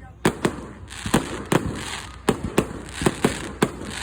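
Fireworks display going off: a rapid, uneven run of sharp bangs, about ten in four seconds, over a continuous crackling hiss.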